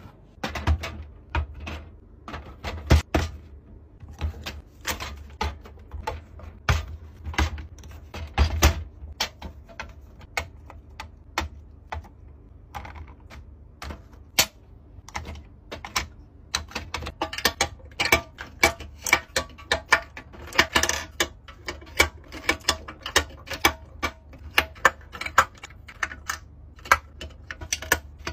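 Plastic skincare bottles, jars and tubes being set down and slotted onto the shelves of a clear acrylic organizer: a steady run of irregular clicks, taps and clacks of plastic on acrylic.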